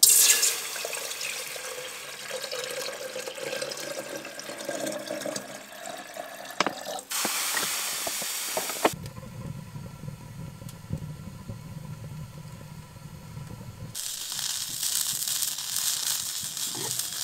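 Water poured from a collapsible plastic water container into an aluminium kettle, its pitch rising as the kettle fills, for about seven seconds. A few sharp metallic clicks follow, then steady noise.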